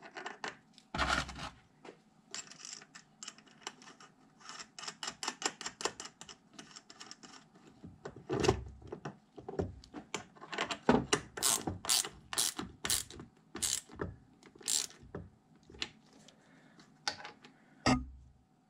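Hand ratchet wrench clicking in runs as it tightens the bolt holding a bench grinder tool rest bracket, the clicks louder in the second half, with a few heavier knocks near the start and near the end.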